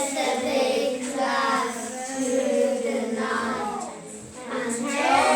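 A class of young children singing together, holding and sliding their notes, with a short dip about four seconds in before the next phrase.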